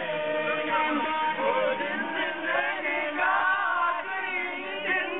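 A small group of people singing together, several voices overlapping.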